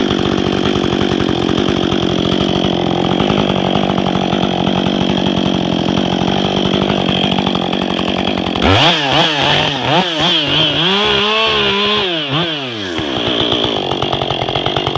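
Ported Husqvarna 562 XP two-stroke chainsaw with a 28-inch bar, running steadily at first, then from about nine seconds in revved up and down several times in quick succession as limbs are cut, before settling again near the end.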